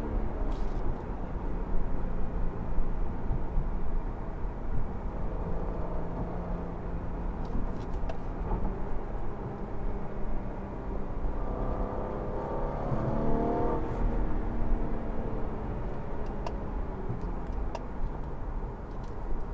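Steady low rumble of a 2016 Cadillac CT6's engine and tyres, heard from inside the cabin while cruising. The engine's note changes briefly about twelve seconds in.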